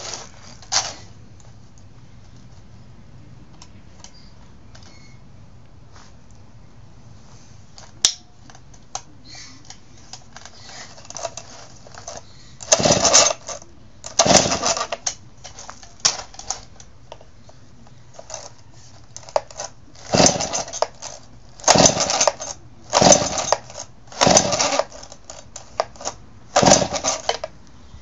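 Stihl S10 two-stroke chainsaw being pull-started: about seven short, rattling pulls of the recoil starter rope in the second half, each turning the engine over briefly without it catching. A few light clicks come earlier.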